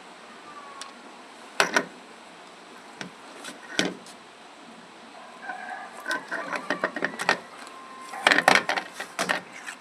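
A few sharp clicks and knocks: single ones about two and four seconds in, then a quick cluster near the end.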